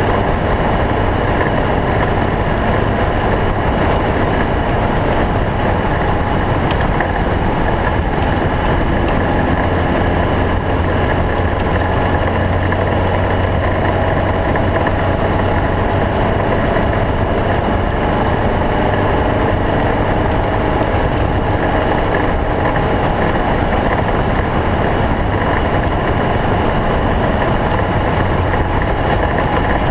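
Stock-class cross-country race snowmobile's engine running steadily: a constant drone with a wash of noise over it and no let-up.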